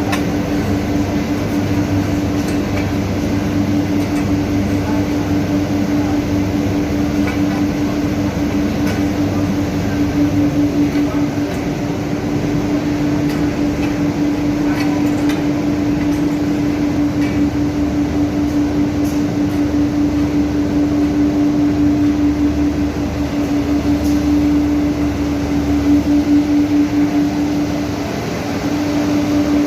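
Steady industrial drone of induction-furnace foundry machinery with its dust-extraction system: a loud constant hum on one steady low note over a rushing noise, with a few faint clicks.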